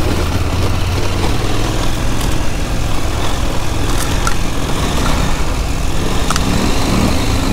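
KTM Adventure R adventure motorcycle's engine running under way at low speed on a rough dirt lane, with wind and tyre noise. A few sharp clicks come through, and the engine note rises near the end.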